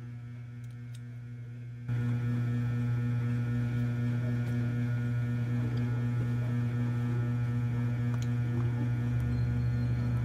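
Steady low electrical hum with a buzzy edge, which jumps clearly louder about two seconds in and then holds steady.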